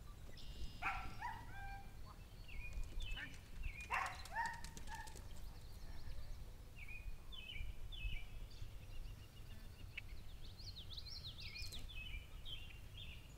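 Open-field ambience: a steady wind rumble on the microphone, two short distant calls in the first few seconds, and songbirds chirping repeatedly through the second half.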